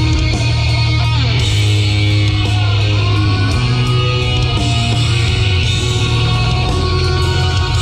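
Loud heavy rock music with electric guitar.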